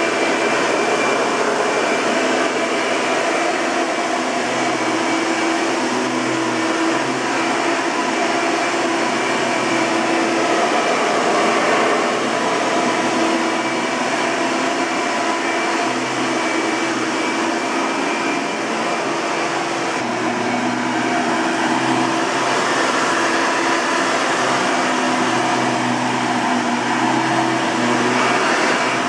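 A 1997 Hoover TurboPower 4000 Elite upright vacuum cleaner running steadily: a motor drone with a thin high whine, its lower hum rising and falling slightly.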